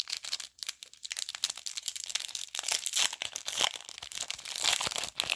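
Packaging crinkling and rustling as it is handled and opened, with a steady run of small crackles.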